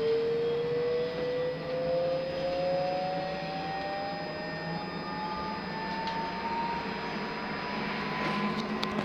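Electric traction drive of a Škoda 31Tr trolleybus whining as the trolleybus accelerates, the whine rising slowly and evenly in pitch, over a steady low hum and road noise inside the passenger cabin. A few light clicks near the end.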